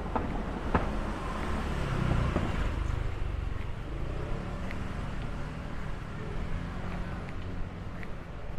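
City street traffic: the low rumble of a motor vehicle passing close by, loudest about two seconds in, over steady traffic noise, with a couple of sharp clicks near the start.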